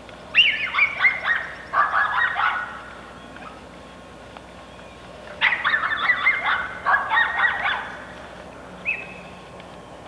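Large domestic fowl calling: two bursts of rapid, falling calls, each a couple of seconds long, then one short call near the end.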